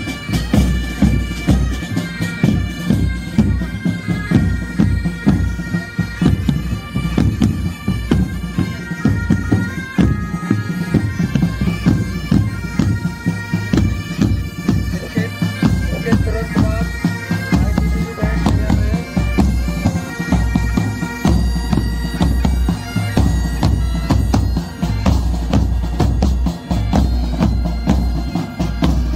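Pipe band playing: bagpipes carry a melody over their continuous drone, with snare and bass drums beating a steady rhythm underneath.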